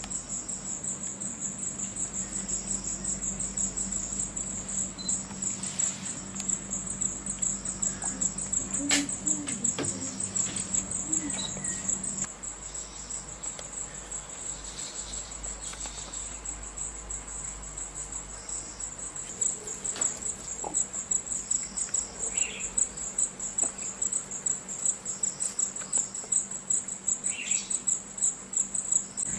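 Insect chorus in forest: a steady, high, shrill trill pulsing rapidly, with a few scattered short bird chirps and clicks. A low hum underneath stops about twelve seconds in.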